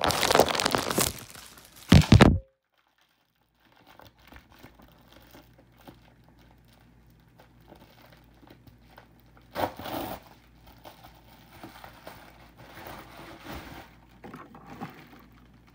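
Amazon Prime mailer crinkling and rustling as it is handled and opened. It is loudest for the first two seconds, then drops out to silence for about a second. Softer rustling follows, with a louder crinkle about ten seconds in.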